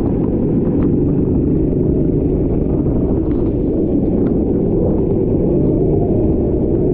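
Rental racing kart engine running steadily at speed, its note wavering slightly and rising a little near the end.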